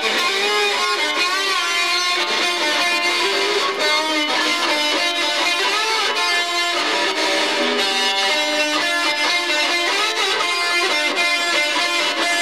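Electric guitar playing an instrumental passage with bending, wavering notes and no singing.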